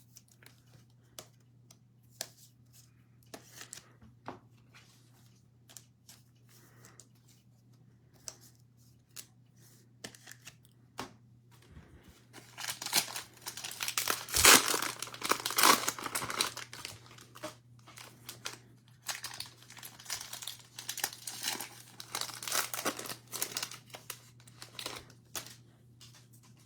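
Faint taps and rustles of trading cards being handled, then loud crinkling and tearing of a cellophane cello-pack wrapper being ripped open and crumpled, starting about halfway through and again near the end.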